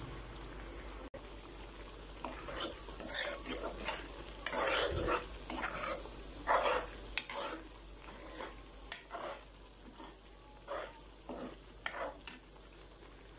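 A steel spoon stirring and scraping chicken, spices and yogurt around a karahi in irregular strokes, over a steady sizzle of the oil frying. This is the bhuna stage, frying the yogurt masala down.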